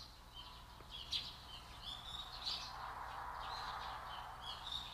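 Small birds chirping: a faint string of short, high chirps, several a second.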